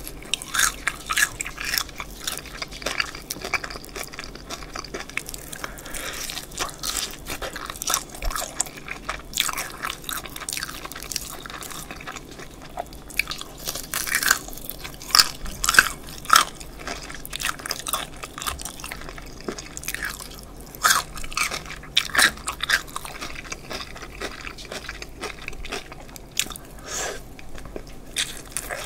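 A person biting into and chewing a crispy fried chicken drumstick close to the microphones: irregular runs of sharp crunches from the crackly batter coating, with chewing between bites.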